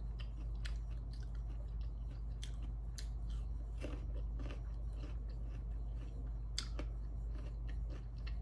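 A person chewing crunchy food with the mouth closed, giving many small, sharp crunching clicks at an uneven pace, over a steady low hum.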